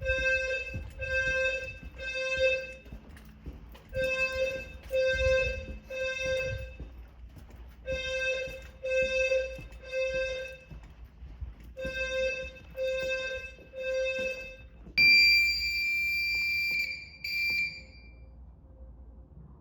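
Fire alarm detector sounder bases sounding the temporal-3 evacuation pattern: a low, buzzy tone in groups of three short beeps with a pause after each group, four groups in all. They then stop, and a louder, shrill electronic tone sounds for about two seconds, followed by one short beep.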